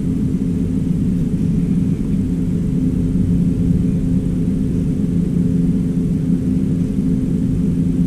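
Steady low hum and rumble of a running machine, even in level throughout, with a few fixed low pitches in it.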